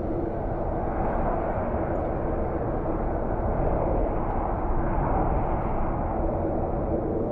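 A steady low rumble with a faint constant hum underneath, swelling slightly in the middle.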